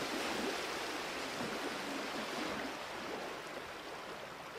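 Distant sea surf, a steady hiss that eases slightly toward the end.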